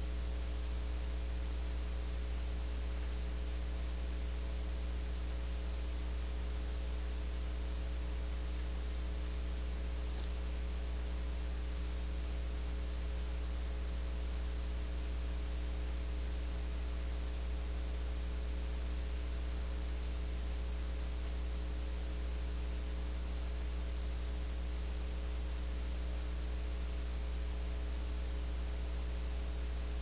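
Steady electrical mains hum from the nest-camera audio: a strong low drone with a few fainter higher tones over an even hiss, unchanging throughout, with no sounds from the owl.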